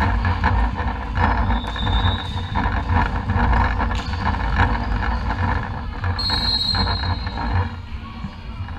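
Echoing indoor sports-hall din during volleyball play: a steady mix of low rumble, thuds and distant voices. Two short high squeaks of sneakers on the wooden court come about two seconds in and again about six seconds in, and a sharp knock comes about four seconds in.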